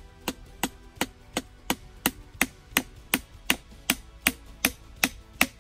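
Small hatchet chopping into wood overhead in a steady rhythm of sharp strikes, about three a second.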